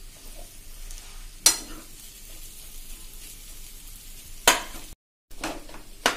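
Steel spoon stirring and pressing boiled potato pieces and spiced vegetables in a kadai over a faint sizzle of frying. It scrapes and clanks sharply against the pan twice, about a second and a half and four and a half seconds in, with more knocks near the end.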